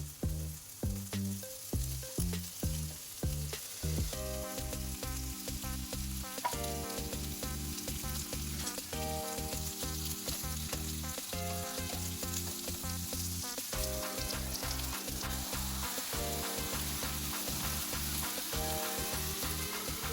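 Food sizzling steadily as it fries in a pan, under background music with a beat that is most distinct in the first few seconds.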